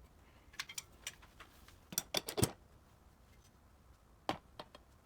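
Scattered light clicks and knocks in three small groups: a few faint ones early, the loudest cluster about two seconds in, and another group past four seconds.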